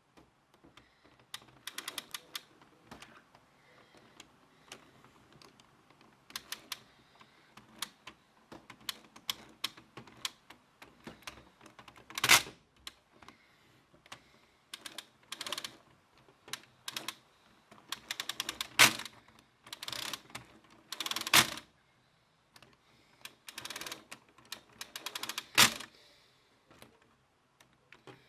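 Lego plastic parts clicking and rattling in quick runs, with a few louder sharp snaps in between.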